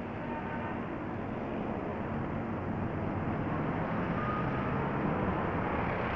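Steady drone of construction machinery with an engine running, getting slowly a little louder.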